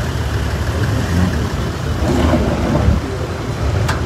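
Outdoor crowd ambience: a loud, uneven low rumble with indistinct voices about two seconds in, and one sharp click near the end.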